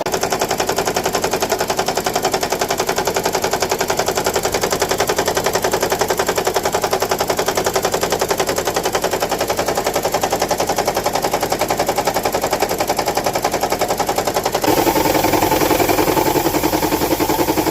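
Toyota Estima AHR20's 2.4-litre four-cylinder engine running rough with a rapid, even rattle, misfiring on cylinders 1 and 2. The rattle gets louder near the end.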